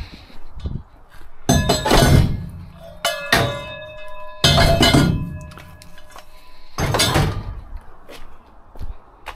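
Pieces of metal scrap being grabbed and dropped onto each other: four loud clanks, one of which leaves the metal ringing for a couple of seconds.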